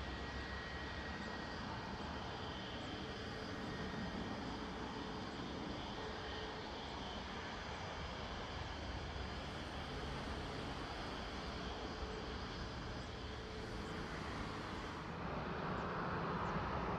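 Steady jet engine noise from a twin-engine business jet landing and rolling out on the runway. About two seconds before the end it changes to the louder, steady engine noise of an Airbus A330-200 on approach.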